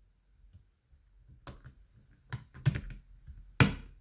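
Blu-ray discs being popped off the plastic hub tray of a steelbook case: a few sharp plastic clicks, the loudest near the end.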